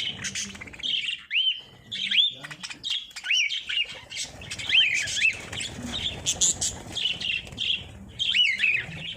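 Lovebirds chirping: a busy, unbroken run of short, arching chirps, several a second.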